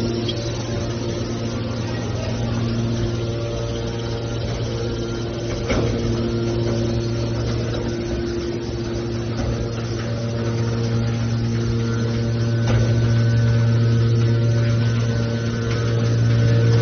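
Metal baler running: a steady low machine hum with a few short knocks along the way.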